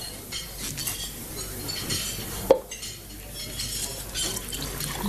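Light clatter of dishes and cutlery, then a single sharp pop about halfway through as a bottle of champagne is opened, followed by the start of pouring into a glass near the end.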